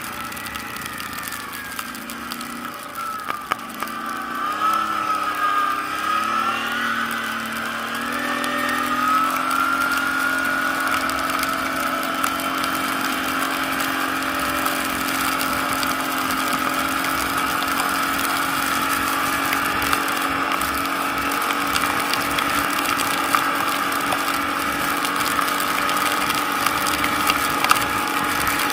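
ATV engine running under throttle: its pitch rises and falls for the first several seconds, then settles and holds nearly steady at a constant speed.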